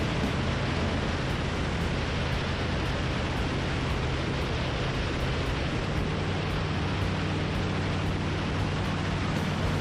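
Gyroplane in flight with its open cockpit: a steady rush of wind over the microphone, with the drone of the pusher engine and propeller underneath, its pitch shifting slightly about six seconds in.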